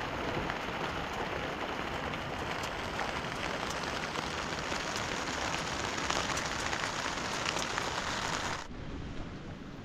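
Heavy rain pattering on a plastic sheet: a dense hiss full of small drop clicks. About nine seconds in it suddenly turns softer and duller.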